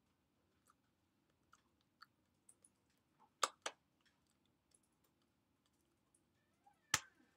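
Faint scattered clicks and taps from a person's hands and mouth while signing, with two sharper clicks about three and a half seconds in and a single louder click near the end.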